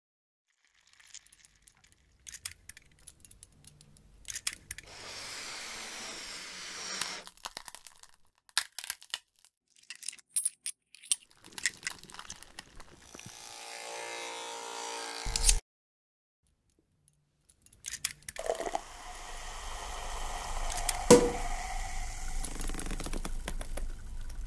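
A montage of sound effects: scattered clicks and knocks, then a stretch of hiss. A second hiss swells and cuts off suddenly. After a brief silence comes a steady low hum with noise and one sharp click.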